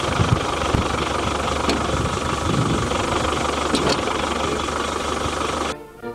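A motor vehicle engine running steadily, with a few light clicks over it. It cuts off abruptly near the end.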